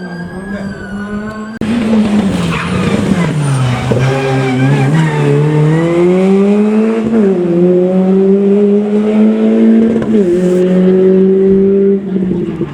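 Rally car engine at full throttle on a gravel stage. It comes in suddenly and loud about one and a half seconds in, then the engine note climbs and drops sharply with upshifts about seven and ten seconds in.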